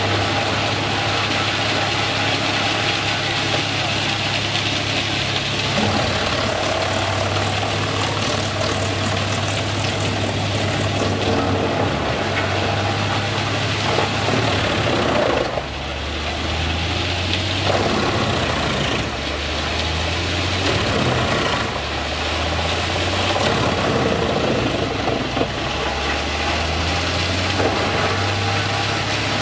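Fendt 939 tractor running a wood chipper under load as logs are fed in: a steady engine note under the continuous noise of wood being chipped and the chips blown out. In the second half the engine note drops and recovers several times as the chipper takes the logs.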